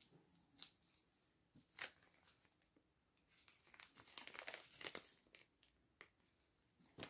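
Thin plastic bag crinkling as it is handled, in a burst of crackles about halfway through, with a few light clicks and taps from the plastic cup and wooden stirring stick before and after.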